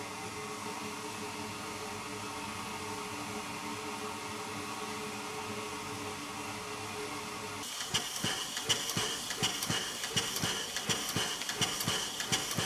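Ol49 steam locomotive standing at the platform, giving off a steady hiss of steam with a steady hum under it. About eight seconds in, the sound changes abruptly to irregular knocks and clicks.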